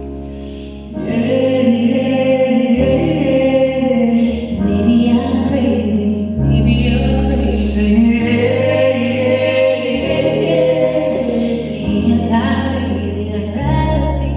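Song with a singing voice that rises and falls on held notes over sustained chords, with a low bass note that changes every couple of seconds. No words come through.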